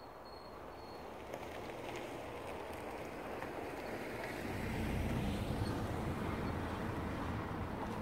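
A motor vehicle drawing near, its engine rumble and road noise building to a peak about five seconds in and staying loud after.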